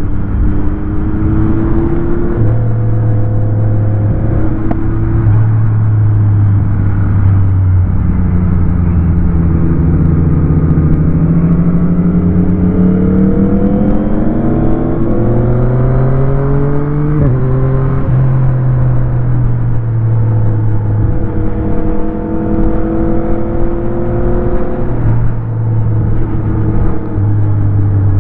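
Motorcycle engine pulling hard through the gears on a winding road: its pitch climbs and then drops at each shift, with one long climb about a third of the way in and several quick shifts after it. Wind rushes steadily over the microphone throughout.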